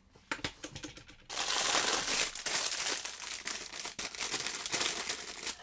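A few light taps and clicks, then from about a second in, steady crinkling of plastic packaging bags as bagged wiring cables are lifted and handled.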